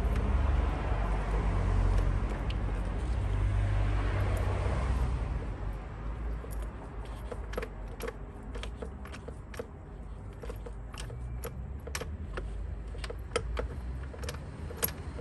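A low rumble for about the first five seconds, then a run of sharp, irregular metallic clicks from a ratchet wrench on a socket, swivel and extension, working a spark plug loose.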